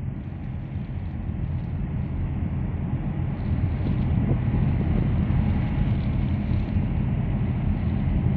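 Wind buffeting the microphone over open water, a steady low rumble that grows a little louder over the first few seconds.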